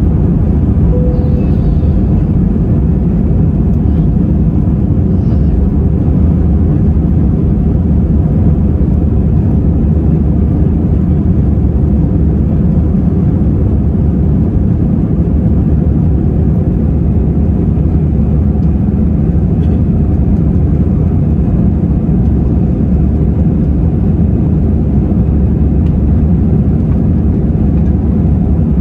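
Airbus A320 cabin noise in the climb just after takeoff: the jet engines and rushing air make a loud, steady low rumble, heard from inside the cabin at a window seat.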